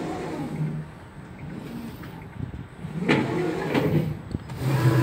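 Internal parcel lift of a Latvijas Pasts automated parcel terminal running as it carries a parcel up to the collection window, with a couple of mechanical clicks about three seconds in and a steady motor hum near the end.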